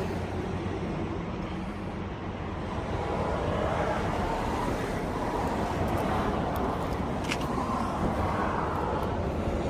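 Road traffic on a busy road, vehicles passing one after another with a steady rumble that swells and fades. There is a faint click about seven seconds in.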